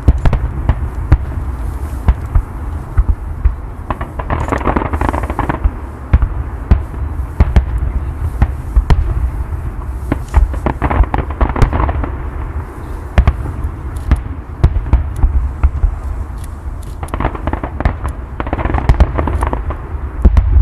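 Fireworks display: a rapid, irregular series of sharp bangs from exploding shells over a continuous low rumble, with swells of denser noise every few seconds.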